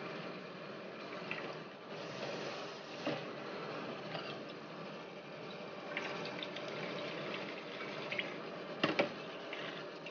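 Coconut milk splashing and trickling as grated coconut is squeezed by hand and the milk is poured from one pot into another, over a steady background hiss. A sharp double knock comes near the end.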